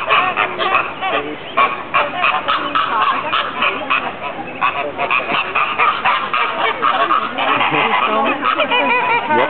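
A flock of flamingos calling, many short honking calls overlapping in a dense, unbroken chatter.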